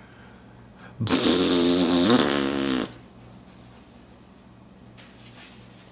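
A baby's harsh, raspy whine, held for almost two seconds starting about a second in: the noise she makes when she is tired.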